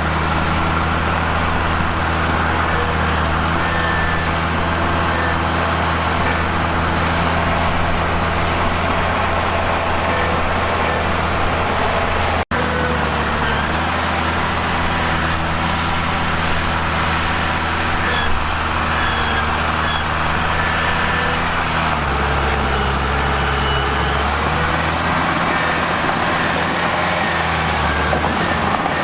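Bulldozer diesel engine running steadily under work. It drops in pitch about two-thirds of the way through and shifts again near the end, with a break for an instant near the middle.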